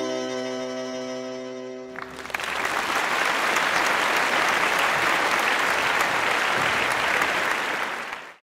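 A guitar chord rings and fades over the first two seconds. Then applause starts and runs steadily until it cuts off abruptly near the end.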